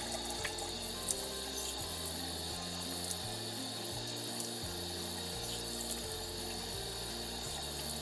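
Tap water running steadily into a sink while a face is being rinsed, with soft background music underneath.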